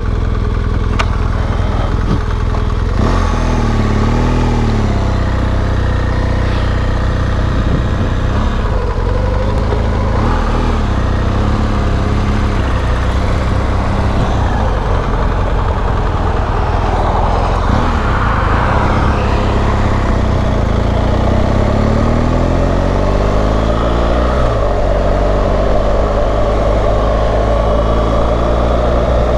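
BMW GS adventure motorcycle engine running on the move, its revs rising and falling through the ride, with a long rising pull about three-quarters of the way through that drops suddenly at a gear change. Wind and road noise run under it.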